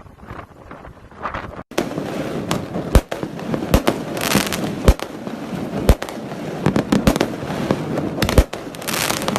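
New Year fireworks going off: a continuous crackle with sharp bangs about once a second, starting abruptly after a quieter first second and a half.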